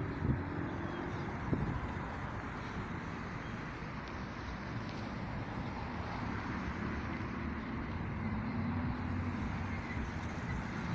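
Road traffic noise: a steady hum of passing vehicles, with two brief knocks in the first two seconds.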